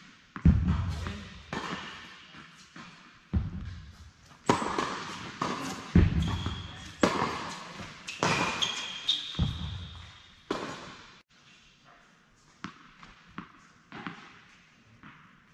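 Tennis rally on an indoor hard court: the ball is struck by rackets and bounces, each hit sharp and echoing through the large hall, roughly once every second or second and a half, with a few short high squeaks in between. After about ten seconds the rally stops and softer, lighter ticks follow as the ball is bounced on the court before a serve.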